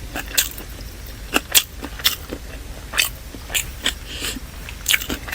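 Close-miked chewing and mouth sounds of someone eating chicken biryani: irregular sharp smacks and crunches, about one every half second to a second.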